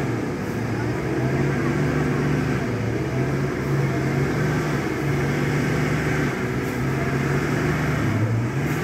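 Bus diesel engine running hard under load, its pitch rising and falling in steps and dipping about eight seconds in, as the bus tries to pull out of deep mud.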